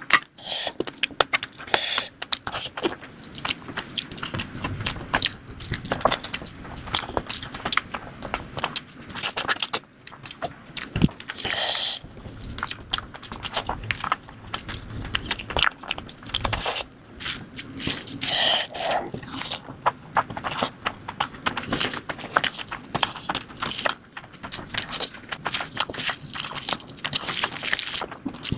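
Close-miked eating sounds: wet chewing and lip smacking on mouthfuls of mutton curry and biryani rice, with a hand squishing and scooping rice and gravy. A dense, irregular run of smacks and clicks.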